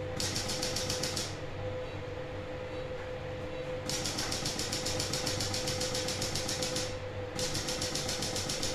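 Intracorporeal lithotripter probe breaking up a urinary stone, firing in three bursts of rapid, even clicking: a short one at the start, a longer one of about three seconds in the middle, and another near the end. A steady hum from the equipment runs underneath.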